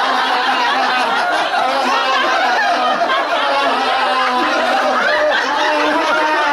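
A group of people laughing together continuously, many voices overlapping in a steady stream of deliberate 'ha ha' laughter-yoga laughing.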